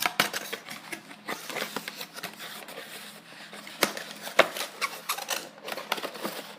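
Laptop AC adapter and its packaging being handled: irregular rustling and small plastic clicks, with a few sharper knocks about four seconds in.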